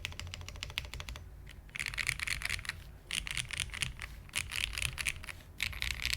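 Typing on a custom aluminium-plate mechanical keyboard with no foam dampening, fitted with lubed vintage Cherry MX Black linear switches and GMK keycaps: a fast run of keystrokes, a short pause, then several quick bursts of keystrokes about a second each.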